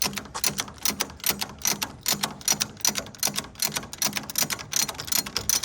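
The Model T's original ratchet jack being worked in reverse to lower the car, its pawl clicking in a rapid, even rhythm of several clicks a second.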